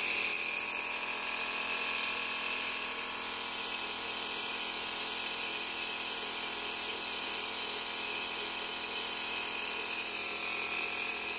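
Omron C17 compressor nebulizer running steadily: an even motor hum with air hissing through the mask's medicine cup while a nebulizer inhalation is under way.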